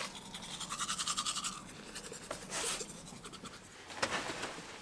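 Fast scratchy rubbing for about a second and a half, then a short rustle a little past halfway and a click near the end.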